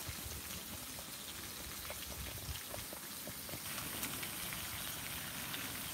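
Bacon strips and seasoned beef burger patties sizzling on a hot Blackstone flat-top griddle: a steady hiss with scattered small pops.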